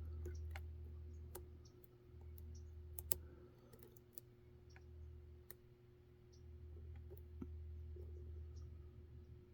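Faint, irregular small clicks of lock picks working the wafers of a Reese towline coupler lock's wafer core, over a low steady hum.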